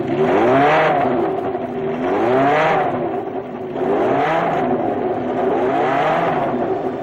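Formula One racing car engine revving up and falling back again and again, about every second and a half to two seconds.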